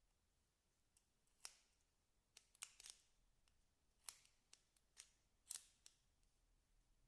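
A series of faint, sharp clicks and snips, about a dozen, irregularly spaced, starting about a second in.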